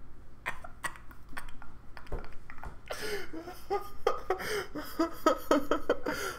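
A man laughing hard: short breathy gasps and wheezes at first, then louder laughter in quick pitched pulses from about three seconds in.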